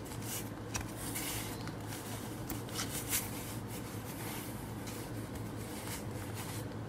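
Faint rustles and light taps from hands shifting a paper-towel-covered cardboard sign on a paper-covered table, over a steady low hum.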